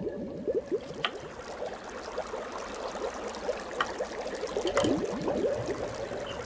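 Bubbling-water sound effect: a dense stream of quick little bubble pops over a steady tone. About three sharp clicks come from a kitchen knife slicing a lemon on a wooden cutting board.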